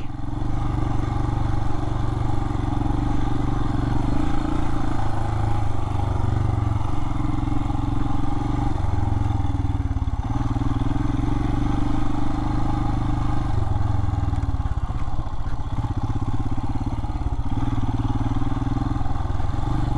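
Royal Enfield Himalayan's single-cylinder engine running steadily under way, its pitch rising and falling a little with the throttle.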